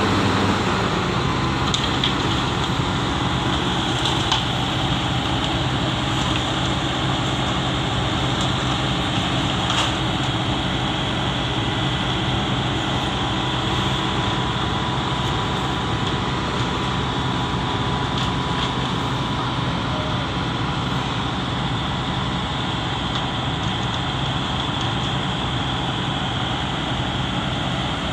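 Heavy diesel engines of an excavator and a concrete mixer truck running steadily in a continuous loud drone.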